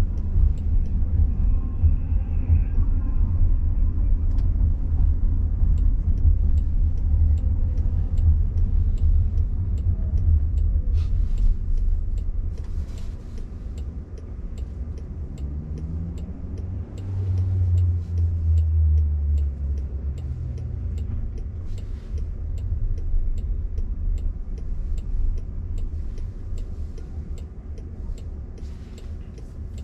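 Low road and tyre rumble inside an electric car's cabin as it rolls slowly through traffic. The rumble eases about halfway through as the car slows. A low hum rises and falls in pitch a few seconds later, and the rumble then fades.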